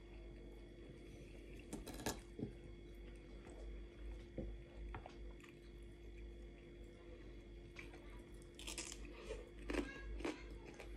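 Someone eating close to the microphone: quiet chewing with a few scattered sharp clicks, then crisp crunching near the end as a slice of fresh cucumber is bitten and chewed.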